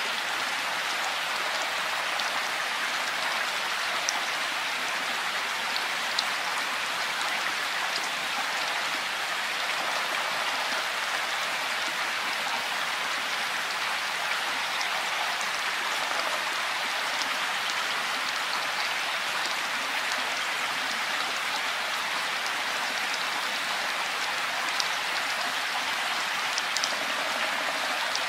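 Steady rain falling, an even hiss, with now and then a single closer drop standing out sharply.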